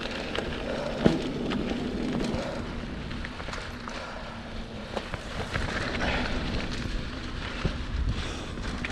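Mountain bike rolling over a dirt forest trail: a steady tyre rumble with rattling and scattered sharp knocks from the bike, one loud knock about a second in.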